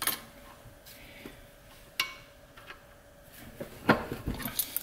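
A few sharp metal clicks of a wrench against an aluminum AN hose fitting clamped in a bench vise: one at the start, one about two seconds in, and a quick cluster near the end.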